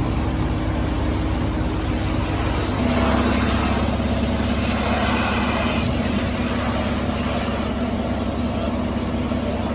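A vehicle engine idling steadily, its note changing about three seconds in and then holding steady.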